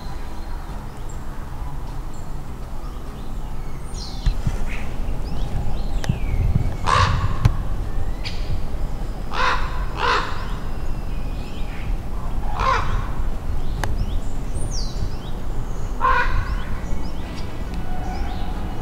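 A crow cawing: a handful of short, harsh calls spaced a few seconds apart, two of them in quick succession near the middle. Faint high chirps of small birds come in between.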